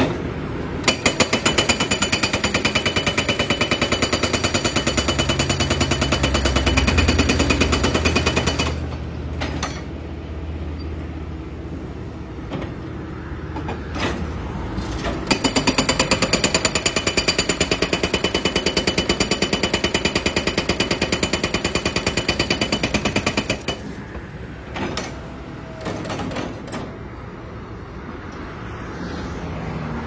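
Hydraulic breaker on a Kobelco crawler excavator hammering in rapid, even blows, in two long runs of several seconds each: the first starts about a second in, the second about halfway through. Between and after the runs the excavator's engine keeps running.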